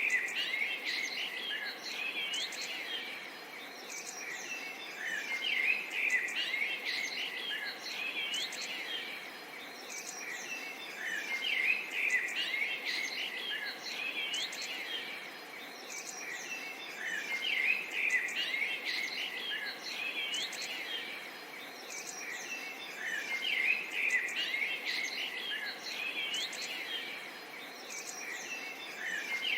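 Many small birds chirping and twittering together in a dense overlapping chorus of quick high calls. The same stretch of birdsong repeats about every six seconds, as a loop.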